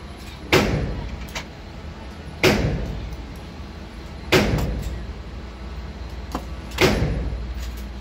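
Four single rifle shots from an AR-15-style rifle, spaced about two seconds apart, each with a ringing echo off the walls of an indoor range. A few fainter cracks fall between them.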